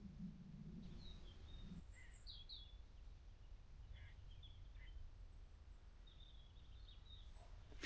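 Faint birds chirping in a quiet woodland: a handful of short, high calls scattered through near silence. A faint low hum stops about two seconds in.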